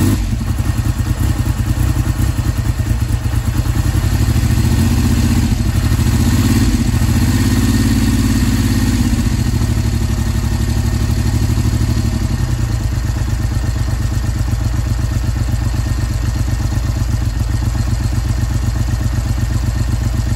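Triumph X75 Hurricane's three-cylinder engine running loud through its triple exhausts. The revs rise and fall a few times in the first half, then settle to a steady idle.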